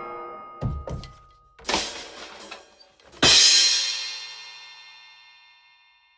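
Drum-kit sting sound effect: two low drum thumps, a sharper snare-like hit, then a cymbal crash that rings out and fades slowly, with the last of a previous ringing effect dying away at the start.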